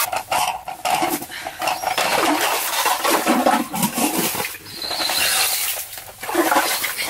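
Lake water and slush gurgling and sloshing in a freshly drilled ice-fishing hole as the ice auger is worked up and down in it and lifted out. The sound is irregular and choppy.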